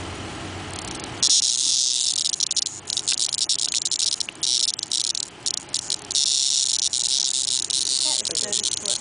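Cicada giving a loud, high, raspy distress buzz, starting abruptly about a second in and stuttering with short breaks, as it struggles while a wasp stings it.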